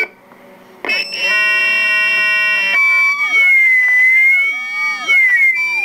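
Electronic tones from a phone. After a brief dip, a chord of steady tones sounds for about two seconds, then breaks into swooping, warbling tones that bend up and down.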